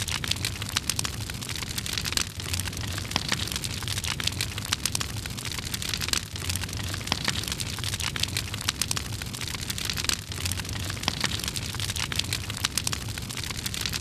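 Crackling fire sound effect: a steady blaze dense with small pops and snaps.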